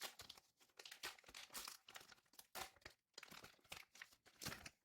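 Faint crinkling and tearing of a foil trading-card booster pack wrapper being pulled open by hand, a run of irregular small crackles.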